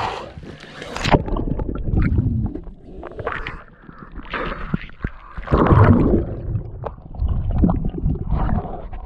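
Water sloshing and splashing as a person in a wetsuit wades into a shallow river, turning to muffled underwater gurgling and rumbling near the end as he goes under with a snorkel.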